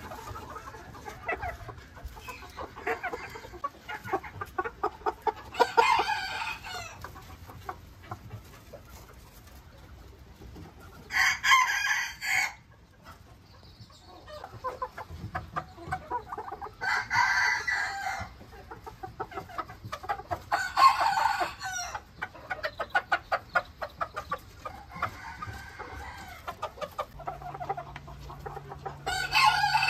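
Ko Shamo bantam chickens clucking, with roosters crowing about five times, each crow a second or two long; the loudest comes about eleven seconds in.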